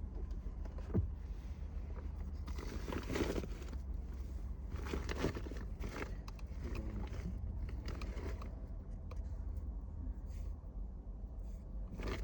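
Scattered rustling and handling noises with one sharp knock about a second in, over a steady low hum.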